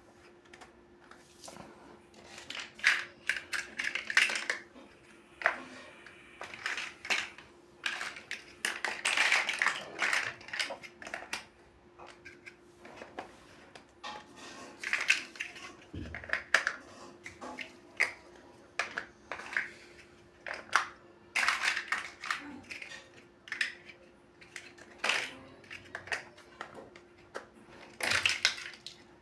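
Plastic building bricks clicking and clattering in irregular bursts as pieces are handled and pressed together, over a faint steady hum.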